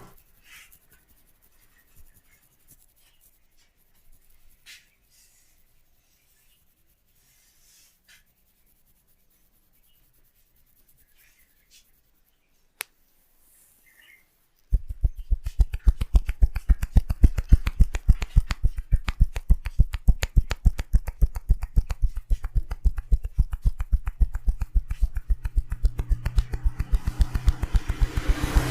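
Hands massaging a head, at first only faint, sparse rubbing and a single sharp click, then from about halfway a rapid, even tapping on the head with the hands, many strikes a second.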